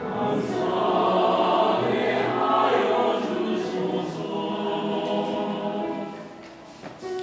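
Church choir singing a hymn in parts, the phrase fading away about six seconds in.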